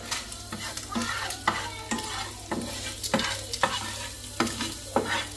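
Spatula scraping and tapping in a nonstick frying pan, stirring boiled quail eggs in masala, about two strokes a second, with the frying sizzle underneath.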